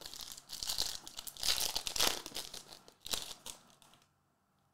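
Foil wrapper of a trading card pack crinkling as it is torn open by hand. It comes in several crackly bursts, loudest about two seconds in, and dies away near the end.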